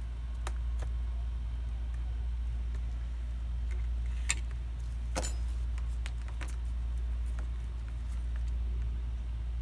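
Small clicks and taps of circuit boards and tweezers being handled on a workbench, with a sharp click a little past four seconds and another about a second later, over a steady low hum.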